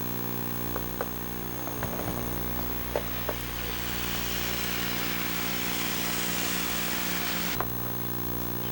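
Steady electrical buzz from a Sony Handycam's audio, a hum made of many stacked tones, with scattered faint clicks. A hiss builds from about four seconds in and cuts off suddenly near the end.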